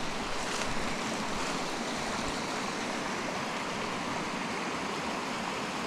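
Creek water running steadily over rocks, an even rushing with no breaks.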